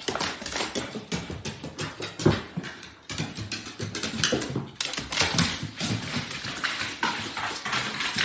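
A dog's claws and paws clattering on hardwood stairs as it goes down them: a rapid, irregular run of clicks with a few heavier thumps.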